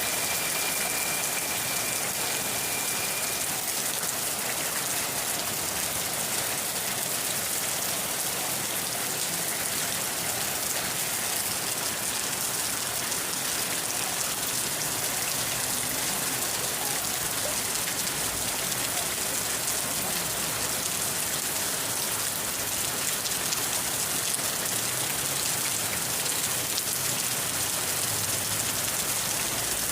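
Steady rain falling and pattering on surfaces, an even hiss that holds at a constant level throughout.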